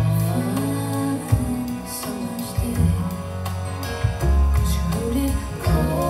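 A song with singing over guitar and a strong bass line, played back through a Bose SoundTouch 30 wireless speaker.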